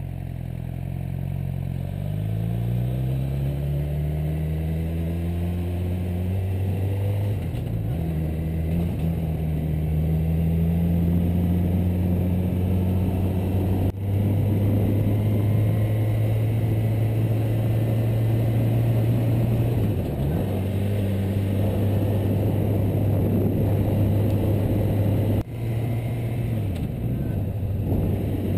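Suzuki GSX-R600's inline-four engine accelerating away and rising in pitch, then pulling steadily up a winding road. The revs dip briefly a few times at gear changes, over steady wind and road noise.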